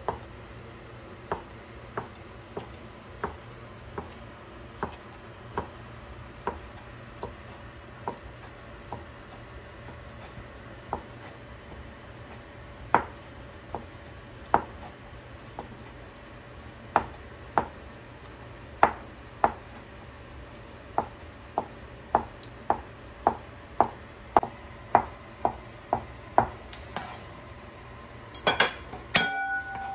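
Kitchen knife slicing a cooked octopus tentacle into rounds on a plastic cutting board, each cut ending in a sharp tap of the blade on the board. The taps come about one to two a second and speed up later, and near the end there is a quick run of knocks and clicks.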